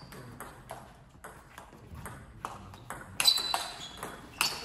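Table tennis rally: the ball clicking off the rackets and bouncing on the table in a quick back-and-forth of short, sharp ticks, with louder hits from about three seconds in.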